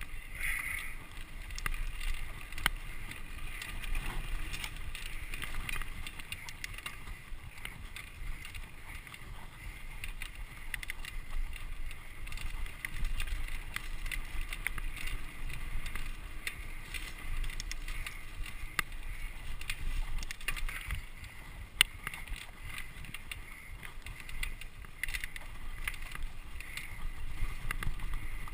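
Mountain bike ridden over dirt singletrack: tyres rolling on the dirt, with the bike rattling and knocking over the bumps. One sharp knock stands out late on.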